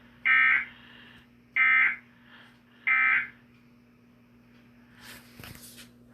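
Emergency Alert System data tones from a TV: three identical short buzzing bursts about 1.3 s apart. A brief soft noise follows near the end.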